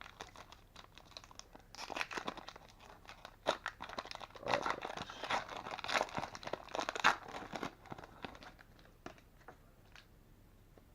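Basketball card pack wrapper being torn open and crinkled, with dense crackling from about two to eight seconds in, then fainter scattered ticks as the cards are handled.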